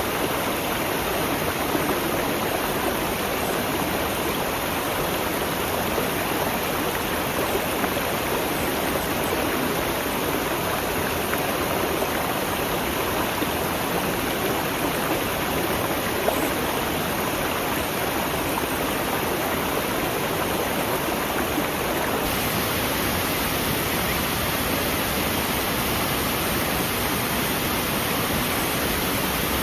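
Waterfall: falling water rushing as a steady, even wash of noise, its hiss turning slightly brighter about two-thirds of the way through.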